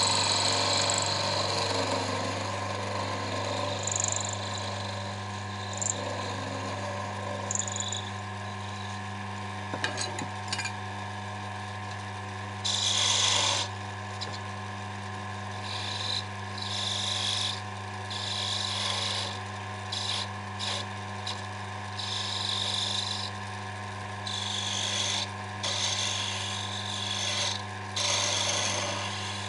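Small lathe running with a steady motor hum while a hand-held chisel cuts a small turned wooden spike, giving repeated short scraping bursts of cutting, more often in the second half.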